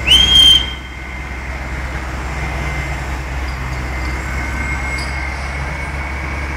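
A brief, loud, high-pitched squeal at the very start that slides up and holds for about half a second, then a steady rumble of road traffic and idling engines.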